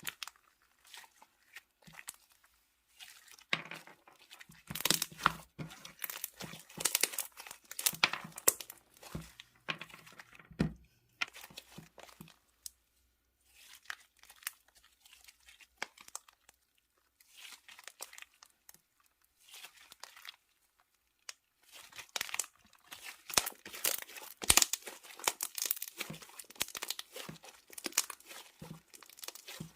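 Slime being squeezed and worked by hand, making dense crackling and popping in bursts with short pauses between.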